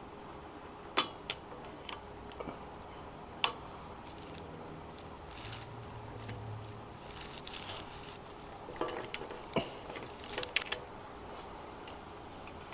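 Scattered metallic clinks and taps as the steel pieces of a steering-neck bearing race installer tool are set into the frame's neck, with one sharp clink a few seconds in and a quick run of clinks near the end.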